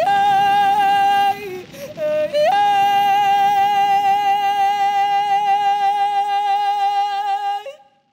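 A woman's voice singing long, high held notes, sliding up into each one, with a short break about a second and a half in. It cuts off shortly before the end.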